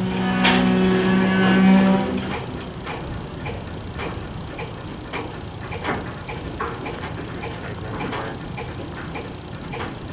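Locomotive air horn sounding a steady chord of several tones, which stops about two seconds in. After it comes a quieter stretch of repeated clicks.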